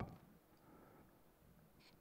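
Near silence: room tone in a pause between spoken sentences.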